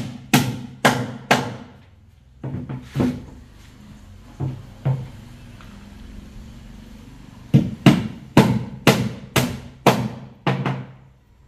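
Hammer driving nails into a wooden board: sharp knocks, each with a short low ring. They come in short groups of two or three, then a steady run of about eight blows, two a second, in the second half.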